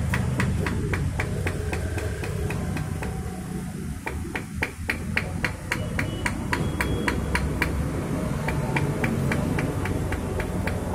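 A metal hand tool scraping a bicycle inner tube in short, quick strokes, about three sharp clicks a second: the rubber around the puncture is being roughened for the patch. A low rumble runs underneath.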